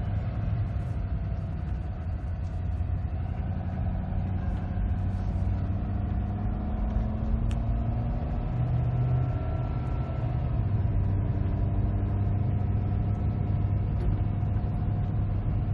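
Pickup truck driving at a steady speed, heard from inside the cab: a steady low engine and road drone, with faint tones above it that drift slightly in pitch.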